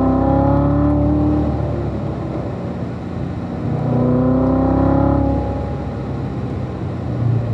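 The car's own engine, heard from inside, pulling hard with its pitch rising in third gear. It upshifts to fourth about a second and a half in, climbs again in fourth, then drops back about five and a half seconds in.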